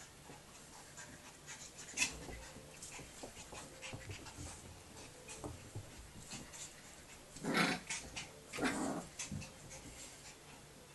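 A Staffordshire Bull Terrier puppy and its mother play-fighting: panting and paws scuffling on a shaggy rug, with many small rustles and two louder bursts of dog noise about a second apart past the middle.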